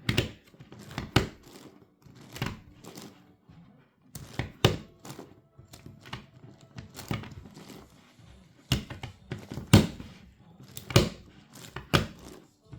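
Plastic clicks and clacks of an 11x11x11 Rubik's cube's layers being turned by hand, irregular, with the louder knocks about a second apart.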